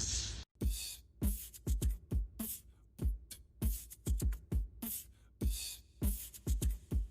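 Background music with a steady electronic beat of deep kick drums and sharp snare or hi-hat hits, which cuts out briefly about half a second in.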